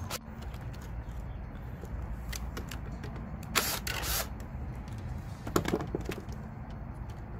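Cordless drill/driver running in short bursts as it tightens a terminal screw, mixed with sharp clicks and taps of the tool and wires being handled; the longest burst comes about three and a half seconds in.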